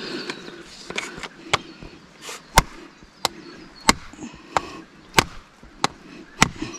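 Repeated sharp knocks, about one and a half a second and about nine in all: a hand tool used in place of a mallet, striking a poly pipe sprinkler riser and its fitting.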